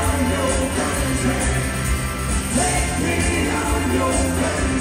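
Live rock band playing with vocals: electric guitars, bass and drums at full volume, with singing over the top.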